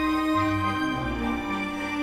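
Background music with sustained, slow-moving notes over a low bass.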